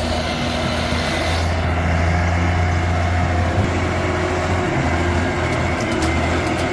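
Heavy truck engine running with a steady low drone.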